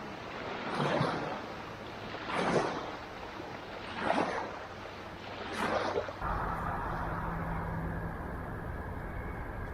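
Rhythmic swishes of river water, five strokes about one every second and a half. About six seconds in the sound switches abruptly to a steady low hum with a faint high tone.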